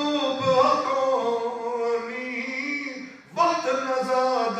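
Man singing a Punjabi religious narrative poem in long, drawn-out melodic phrases. He breaks off for a breath a little after three seconds in, then starts a new phrase.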